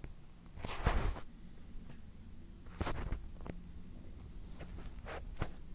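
A quiet room with a few brief rustles and soft knocks, about five in all, the loudest about a second in.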